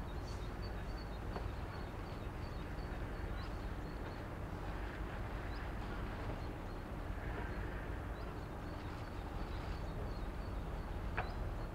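Harbour ambience: a steady low rumble, with a small bird chirping repeatedly in short high notes and a single brief click near the end.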